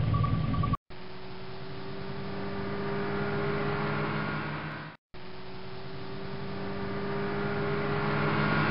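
A steady engine drone that slowly grows louder, stops abruptly about five seconds in, then starts again and grows louder still.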